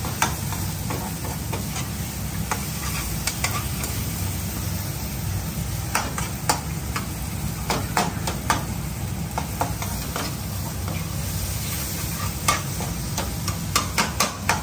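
Chopped onion, tomato and dried chillies sizzling in oil in a pan while a slotted spoon stirs them, scraping and knocking against the pan. The knocks come in clusters, about halfway through and again near the end.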